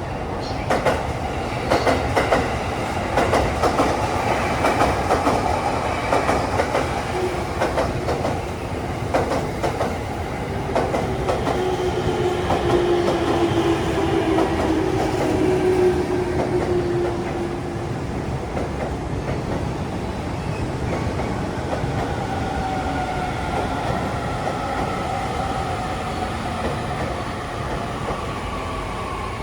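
Electric train running on the rails, with many clicks over the rail joints in the first half. A whine then falls gently in pitch through the second half.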